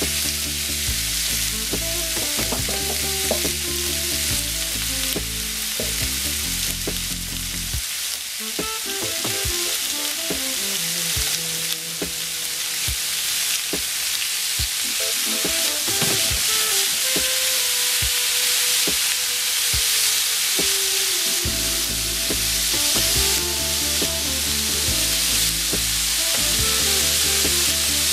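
Cubed beef frying in an oiled nonstick pan: a steady sizzle, with scrapes and clicks of a utensil stirring and turning the pieces.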